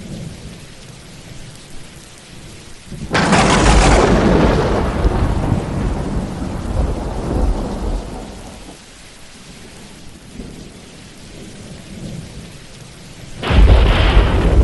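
Thunderstorm: steady rain with two thunderclaps. A sharp crack about three seconds in rumbles away over several seconds, and a second clap breaks near the end.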